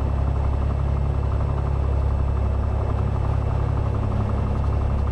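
Cessna 182's six-cylinder piston engine and propeller running steadily at low power, a constant drone heard from inside the cockpit.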